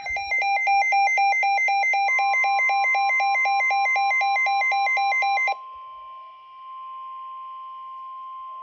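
Midland WR120 weather radio sounding a severe thunderstorm warning alert: a loud alarm flipping rapidly between two pitches, about four times a second, that cuts off suddenly about five and a half seconds in. From about two seconds in, a steady single-pitch warning tone from the broadcast joins it and carries on alone through the radio's speaker, with a faint hiss.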